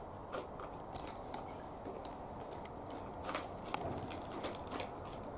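A dog eating from a plastic bowl: faint, irregular clicks and crunches of chewing and lapping.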